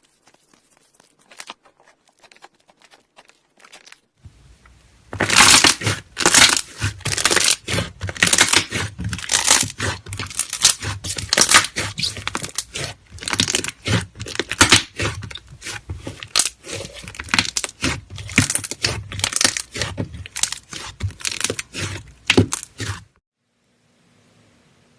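Slime being pressed and squeezed, making a dense run of sharp crackles and pops. The crackles are faint at first, turn loud about five seconds in, and stop suddenly near the end.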